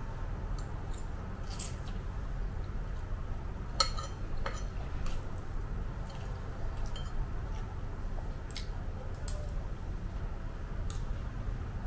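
Metal fork and spoon clinking and scraping against a ceramic bowl as fried instant noodles are twirled, with wet slurping and chewing between the clinks. The sharpest clink, with a short ring, comes about four seconds in.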